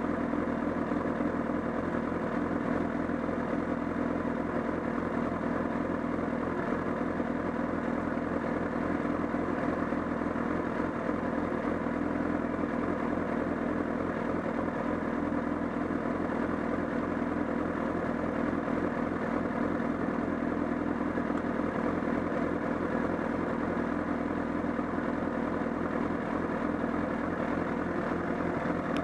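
Honda CBR1000RR inline-four engine idling steadily with a fine, even pulsing. It carries a flapping, clattering noise from around the engine that the owner reports grew stronger along with a loss of torque.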